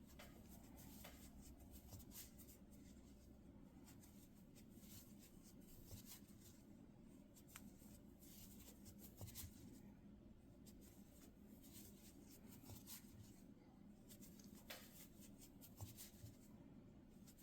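Near silence: faint rustle and scattered light clicks of a crochet hook working yarn in single crochet, over a low steady hum.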